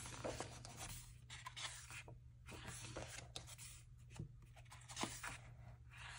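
Pages of a thick photobook being turned and smoothed open by hand: faint paper rustling and sliding with a few light taps, over a faint steady hum.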